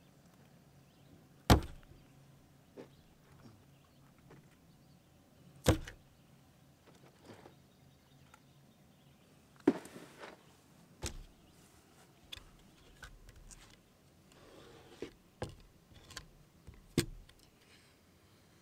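Freshly caught crappie set down onto a hard plastic table top one at a time: a handful of separate sharp thumps several seconds apart, the first the loudest, with a few lighter knocks between them.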